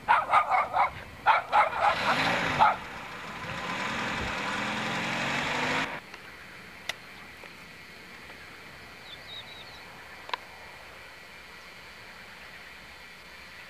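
A small dog barking in a rapid run of yaps, then a vehicle passing close, its sound building and then cut off abruptly about six seconds in. Quiet outdoor background follows, with a few faint high chirps.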